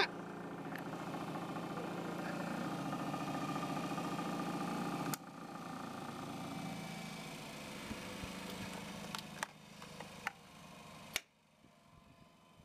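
Jugs pitching machine's electric motor spinning its throwing wheel, a steady hum. A sharp click about five seconds in and it runs on quieter. A few clicks follow, then a last click near the end and the hum stops.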